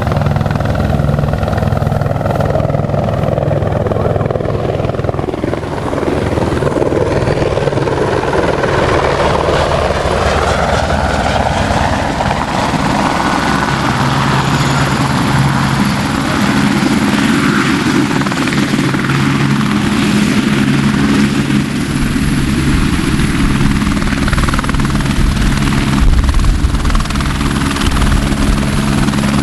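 Helicopter rotor and turbine engine running continuously as the helicopter flies in overhead, then descends and hovers low over the field to land, growing louder near the end.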